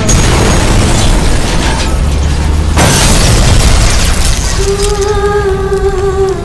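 Film-trailer sound design over music: dense rumbling effects, then a sudden explosion boom about three seconds in. From about four and a half seconds a long held note in the score takes over.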